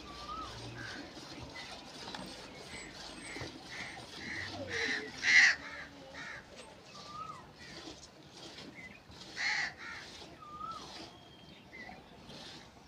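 Crows cawing: a few short, harsh calls, the loudest about five seconds in and another near ten seconds, over lighter chirps and short whistles of small birds.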